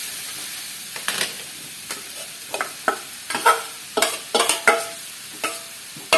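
Perforated steel ladle stirring and scraping a dry stir-fry in an aluminium kadai, and scraping the last of the mix out of a steel bowl, over a soft sizzle of frying. The clinks and scrapes come as a run of sharp knocks, busiest and most ringing around the middle, with another loud clink at the very end.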